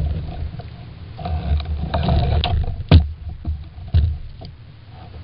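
Wind buffeting the microphone and water lapping against a kayak on choppy water, with two sharp knocks about a second apart near the middle, the first the loudest.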